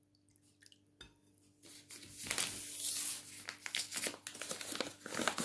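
A bag of flour rustling and crinkling as it is handled, starting about a second and a half in, with many small crackles.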